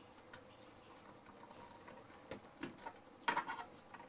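Sparse light clicks of small metal parts and hand tools inside a valve radio chassis as old components are pulled out, with a short clatter of clicks about three seconds in.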